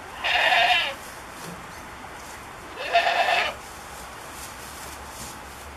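Goat bleating twice: two short calls about two and a half seconds apart.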